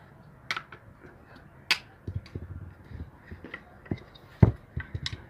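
Irregular knocks and sharp metallic taps from work on a washing machine motor while new bearings are fitted: a few loud sharp strikes, the loudest about four and a half seconds in, among a run of duller knocks.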